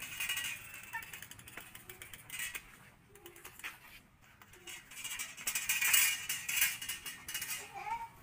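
Child's bicycle rattling and clicking as it is ridden over rough concrete, with a louder stretch of rattling about six seconds in.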